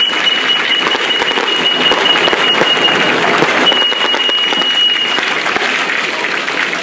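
Crowd applauding, with a high, steady tone held over it that breaks briefly about three seconds in and stops about five seconds in.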